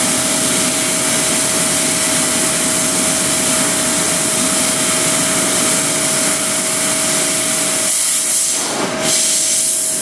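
Mazak Space Gear 48 CNC laser cutter working sheet metal: a loud, steady hiss from the cutting head with a steady whine running under it, briefly dipping and changing about eight to nine seconds in.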